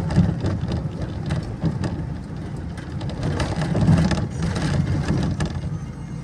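Inside a moving bus: a low engine and road rumble with frequent rattles and clicks of the bodywork and windows, swelling louder about four seconds in.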